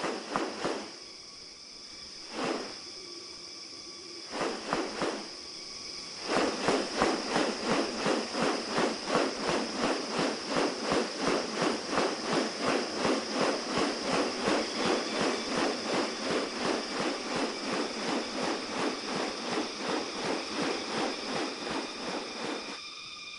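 Rainforest insects with a steady high-pitched drone. A few separate sharp strokes come in the first seconds; from about six seconds in a fast, even pulse of sharp strokes, two to three a second, takes over.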